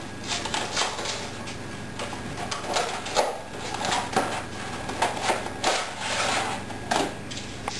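A cardboard box of dry lasagna sheets being torn open by hand, with irregular crackling, rustling and tearing of the packaging.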